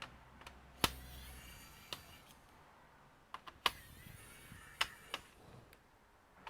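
Scattered sharp clicks and taps of plastic laptop parts being handled during disassembly, a handful of separate knocks with two louder ones about a second in and near the middle.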